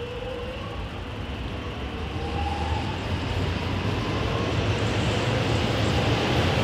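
Alstom X'Trapolis 100 electric train accelerating: a motor whine rises in pitch over a rumble that grows steadily louder.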